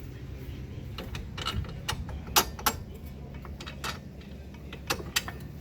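Scattered sharp metal clicks and clinks of hand tools and parts being worked on a car's front axle assembly, about eight in all, the loudest about two and a half seconds in, over a steady low hum.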